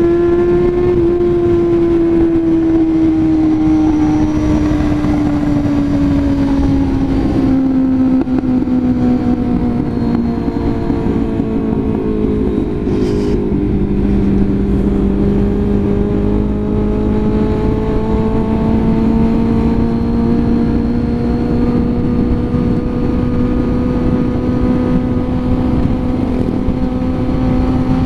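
Honda CB400 Super Four's 399 cc inline-four engine pulling in second gear on an uphill ride, heard from the rider's seat over wind rush. Its pitch falls slowly as the revs drop until about halfway through, then climbs gradually again.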